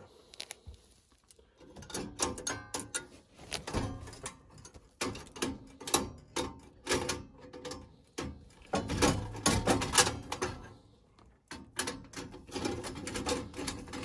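Irregular metallic clicks, knocks and rattles of furnace parts and wiring being handled in an opened gas furnace's burner compartment.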